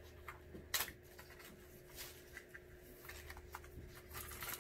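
Bubble wrap and plastic packaging rustling and crinkling as items are handled, in scattered faint crackles with a sharper crinkle about three-quarters of a second in and a longer rustle near the end.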